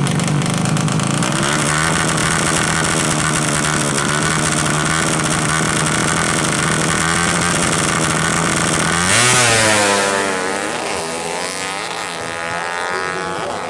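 Drag-tuned underbone motorcycle with a horizontal 'sleep' engine running at a steady pitch, then about nine seconds in passing close and loud, its pitch falling as it goes away.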